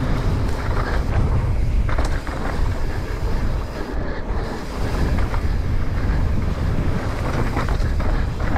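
Wind buffeting the microphone of an action camera on a mountain bike riding fast downhill, a steady loud rumble with the tyres rolling over the dirt trail. A few sharp knocks come from the bike over bumps, about two seconds in and again near the end.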